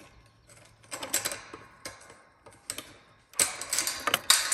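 Chain and snap-hook latch of a metal pipe gate being worked loose by hand: metal clinking and rattling in a few separate bursts, the busiest and loudest near the end.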